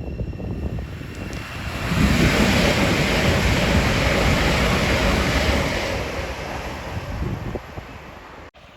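A train passing at speed: a loud rushing noise that swells about two seconds in, holds for some four seconds and then fades, without any horn.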